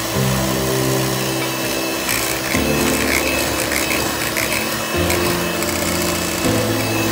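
Electric hand mixer running, its beaters churning and scraping through thick butter-cake batter as flour is worked in.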